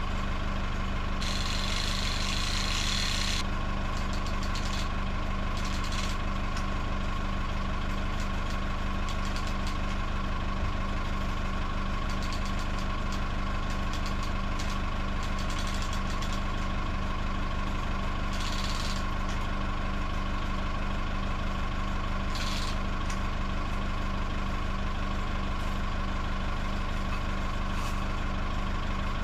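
Telehandler's diesel engine idling steadily. Three short hisses stand out over it: a two-second one about a second in, and two briefer ones later.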